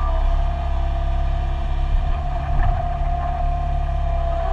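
Mini excavator's diesel engine running steadily under working load, heard from inside the cab, with a steady high whine over the low rumble.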